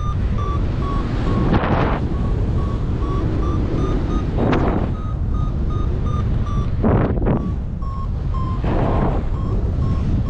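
A paragliding variometer beeping in a quick, even string of short tones, about three a second, drifting slightly up and down in pitch: the climb signal, sounding while the glider rises in lift. Loud wind buffeting the microphone runs underneath and swells in several gusts.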